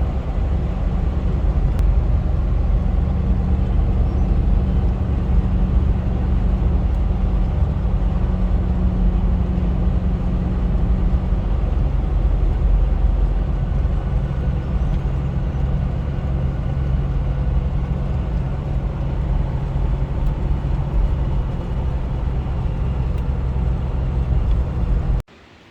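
Land Cruiser FJ80 with a swapped-in 6.0 LS V8, driving with a steady engine drone and road rumble. The engine note settles lower about halfway through, then the sound cuts off suddenly near the end.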